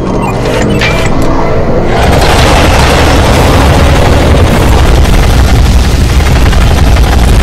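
Battle sound effects: rapid weapon fire and booming explosions that build in the first two seconds, then break into a loud, continuous barrage with a heavy low rumble.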